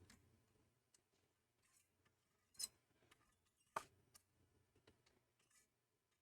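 Faint, sparse clicks and taps of a small hand tool and metal parts while a heat sink is screwed down onto a Mac Pro CPU tray, with two sharper clicks around the middle.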